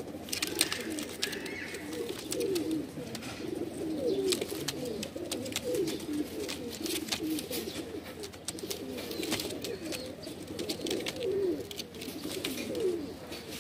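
Several domestic pigeons cooing over one another, with frequent light clicks and taps mixed in.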